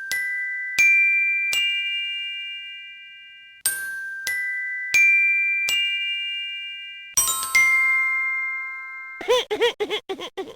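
Glockenspiel-like chime sound effect: a rising four-note phrase, each note ringing on, played twice. Then two lower chime notes follow, and a fast wobbling, warbling tone comes near the end.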